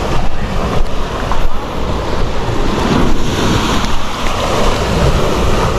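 Wind buffeting an action camera's microphone, with waves breaking on a sandy beach.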